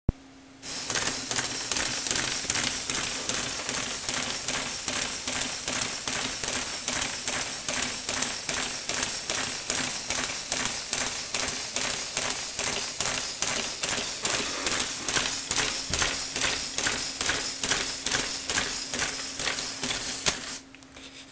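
A motor-driven Lego Technic robot hopping on a desk: its gear-and-crank legs clack in an even rhythm of about two and a half sharp plastic clicks a second. The clacking starts about half a second in and cuts off about a second before the end.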